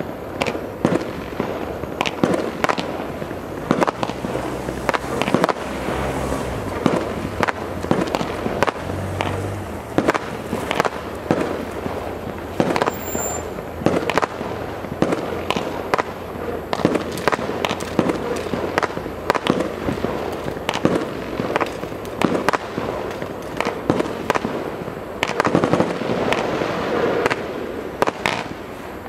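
A 25-shot, 20 mm Colourful Crossette firework cake firing: a rapid, continuous run of launch thumps and sharp bangs, with the crackle of the red and green crossette stars splitting.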